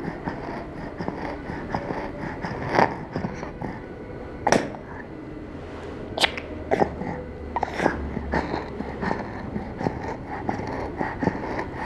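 A young child breathing with a wheeze on each breath out: an expiratory wheeze, not stridor. Several short sharp noises stand out over the breathing.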